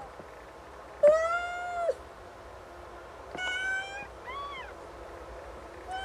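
Snowshoe Siamese cat meowing: a long, loud meow about a second in, a shorter meow in the middle, then a brief, higher mew that rises and falls.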